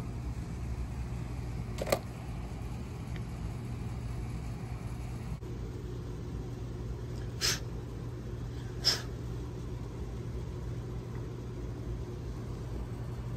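A steady low mechanical hum, with three short clicks as the plastic and rubber parts of a backflow preventer repair kit are handled and fitted into the valve body: one about two seconds in and two more between seven and nine seconds in.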